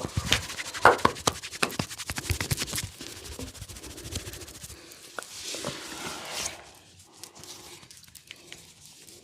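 Massage sounds of hands working on a person's head and upper body: a fast run of sharp taps and slaps, then softer rubbing and scraping, with a brief hissing swell of rubbing about six seconds in.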